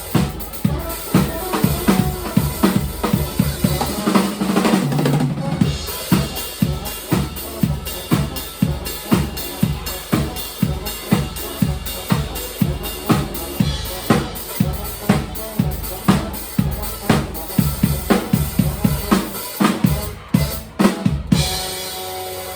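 Live band playing, led by a drum kit keeping a steady, driving beat of kick and snare over bass. Near the end the beat breaks into a few accented hits and a held chord.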